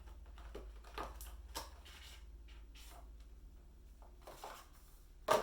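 Paper packaging and a small pouch being handled: scattered rustles and light taps, with one sharper knock near the end, over a steady low hum.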